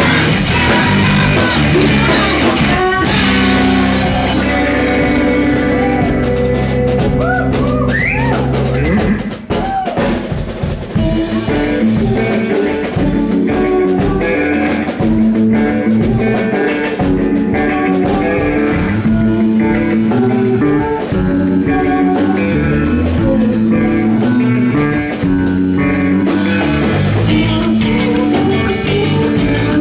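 Live math rock band: two electric guitars, electric bass and a Pearl drum kit. A loud full-band passage with crashing cymbals thins about three seconds in to held chords. About nine seconds in it drops to choppy, intricate guitar and bass lines over fast steady hi-hat, and the cymbals build back near the end.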